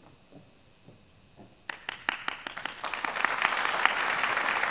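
Audience applause: a few scattered claps about a second and a half in, quickly filling out into steady clapping from many hands.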